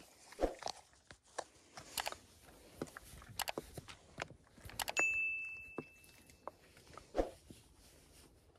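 Soft rustling and scattered sharp clicks as a pit bull shifts and climbs about on a car's front seats. About five seconds in, a single bright ding from an added subscribe-button graphic rings out and fades over a second and a half.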